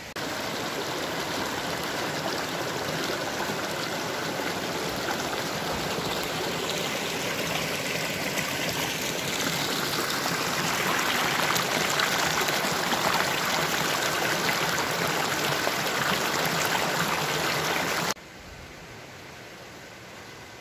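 Shallow mountain stream running fast over rocks: a steady rush and splash of water that grows a little louder midway and cuts off suddenly near the end.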